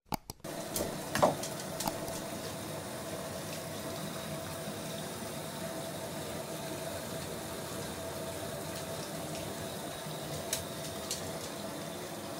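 Water running steadily from the tap into a bathtub as it fills. A few sharp knocks come near the start, the loudest about a second in, with a couple more near the end.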